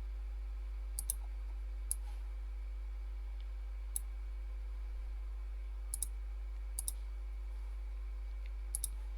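Scattered sharp clicks of a computer mouse, several in quick pairs, about nine in all, over a steady low hum.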